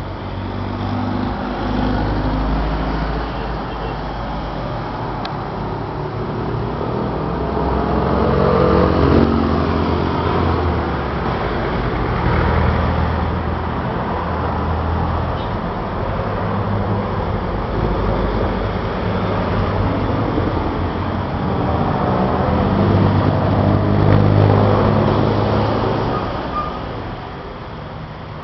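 Road traffic passing on a wet street: engines of buses, trucks and cars running by with tyre hiss, swelling and fading as each goes past, loudest twice.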